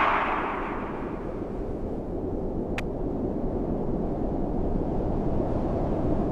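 The tail of a loud boom fading over about a second into a steady low rumbling noise, with one sharp tick about three seconds in.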